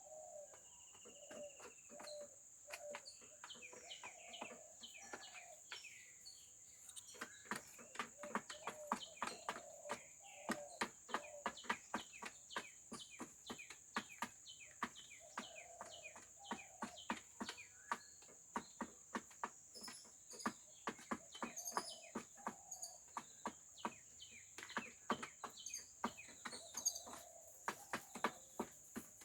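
Chickens pecking at feed with many quick, sharp taps, thickest after the first several seconds, over soft low clucking. A steady high-pitched insect drone runs underneath.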